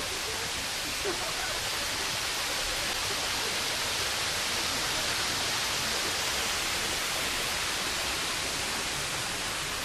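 Steady rushing noise, like falling or running water, that swells slightly around the middle.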